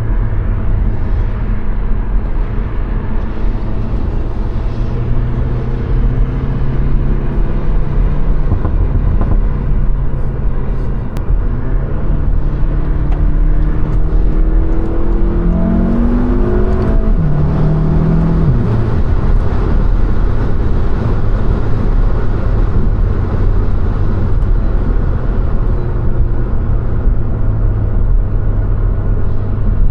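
2015 Volkswagen GTI's 2.0-litre turbocharged four-cylinder engine, Stage 1-tuned with an open intake and stock exhaust, running under way. Its note holds steady, climbs for a few seconds about halfway through, then drops sharply and settles back to a steady pull.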